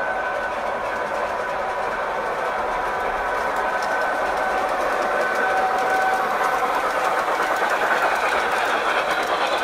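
Model train running on the layout track: a steady electric motor whine with wheels rattling over the rails, growing louder as it comes nearer, loudest about eight seconds in.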